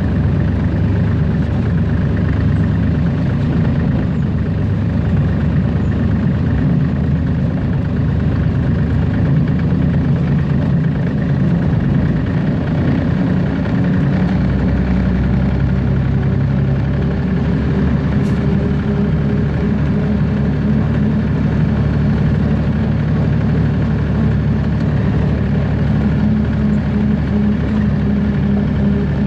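Hunslet narrow-gauge diesel locomotive's engine running steadily as the loco travels along the track, heard from the cab. The engine note shifts about halfway through.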